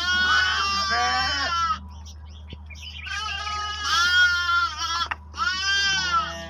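Lambs bleating: three long, wavering, high-pitched calls, the first with two voices overlapping.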